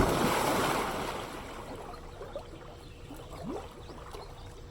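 Pool water churning after people jump in: a loud splashing wash at the start that fades over about two seconds, then the water lapping and trickling as it settles.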